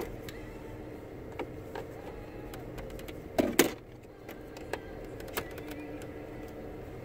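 Plastic clicks and rattles from a car phone holder being handled and fitted, with one louder clatter about three and a half seconds in, over a steady low hum.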